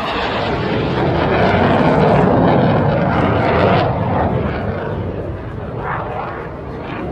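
Turboprop engines of a four-engine military transport running on the airfield, a loud dense drone. It swells over the first two seconds, holds until about four seconds in, then eases off.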